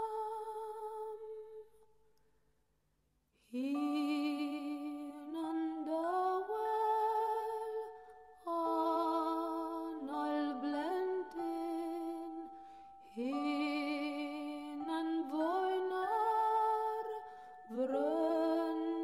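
Background music: a slow, soft wordless melody like a voice humming or singing a lullaby, its notes sliding into one another. It fades out about two seconds in and comes back a second and a half later.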